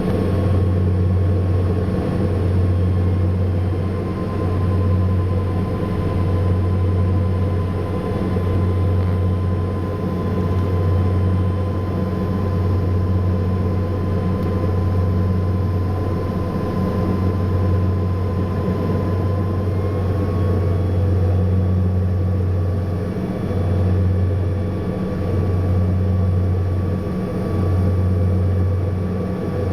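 Cabin sound of a Saab 340 turboprop airliner in flight: its two GE CT7 turboprop engines and propellers make a loud, steady low drone that swells and fades every couple of seconds as the two propellers beat against each other. A thin steady whine runs over it and steps up slightly about two-thirds of the way through.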